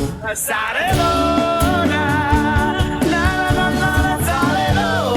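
Live band playing an upbeat rock song with sung vocals. The band drops out briefly just after the start, then comes back in full.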